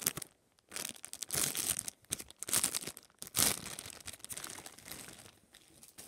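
Plastic packaging bag crinkling and rustling in irregular bursts as a squishy toy is worked out of it by hand.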